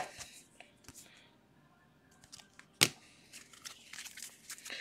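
A stack of glossy baseball cards handled and slid one past another by hand: faint rustling and light clicks, with one sharp snap a little under three seconds in.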